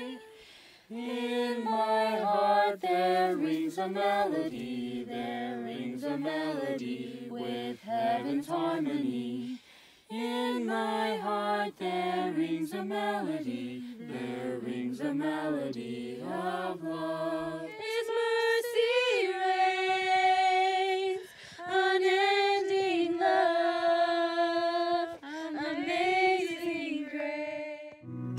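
Unaccompanied singing: a lower and a higher voice sing together, then from about two-thirds of the way in a higher voice carries on alone, holding longer notes.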